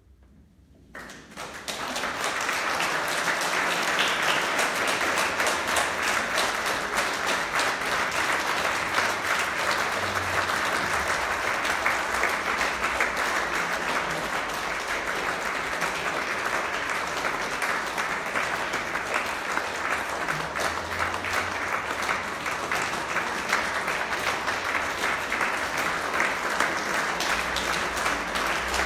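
Audience applauding: a quiet first second, then clapping breaks out about a second in and carries on dense and steady.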